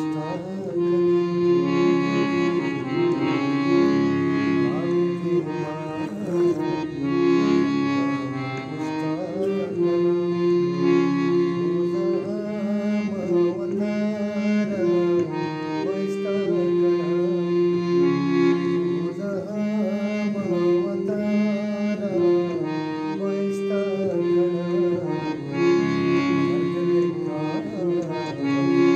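Harmonium playing a melody over held reedy chords, with a man singing along.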